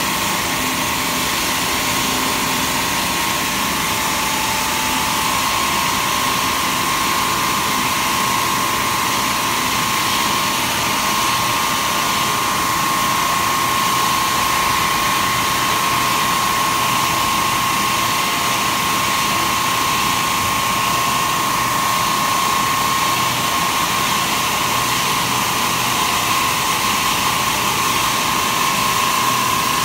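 Automatic stone-turning lathe at work: a motor-driven circular diamond blade grinds into a rotating stone cylinder. It makes a steady, loud grinding hiss with a constant high whine.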